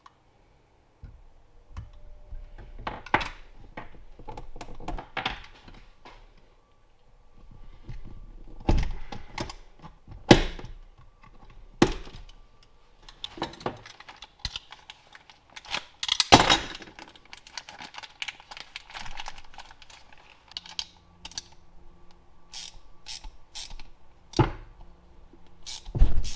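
Irregular knocks and clicks of metal tools and parts handled on a wooden workbench. Near the end come a run of short, evenly spaced clicks, as a ratcheting wrench turns a brass fitting.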